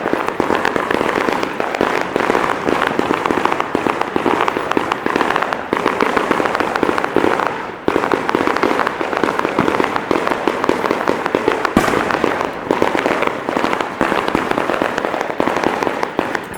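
A rapid fireworks barrage: a dense, continuous stream of bangs and crackling pops, many a second, with a brief lull a little past halfway and one sharp crack near the end.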